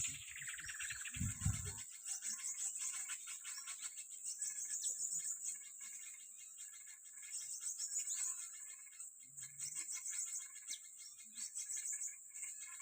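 Small birds chirping over a steady high-pitched insect drone, with a few low knocks in the first couple of seconds.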